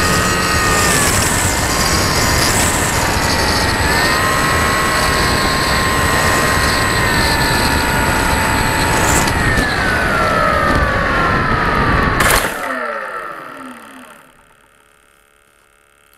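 RC FPV model plane's motor and propeller whining over a steady rush of wind on the onboard camera's microphone, the whine shifting in pitch and then falling away over a couple of seconds. A sharp knock comes about twelve seconds in, after which the sound dies down to quiet.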